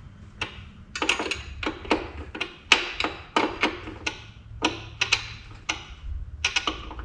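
Irregular sharp clicks and clinks of hand tools on metal, one to three a second, some with a short metallic ring, as parts are worked on and bolted up.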